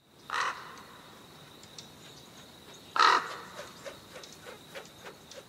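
Bird-call sound effect: two loud, harsh bird calls about three seconds apart, over a faint steady high-pitched tone with light scattered ticks.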